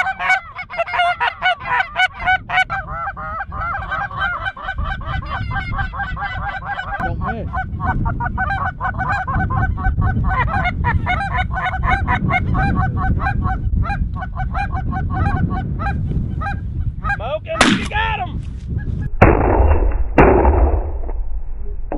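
Goose call blown in fast, rhythmic honks and clucks, with geese honking, through most of the stretch. Near the end a sharp, loud crack and then about two seconds of loud rumbling noise: shotgun fire at the incoming geese.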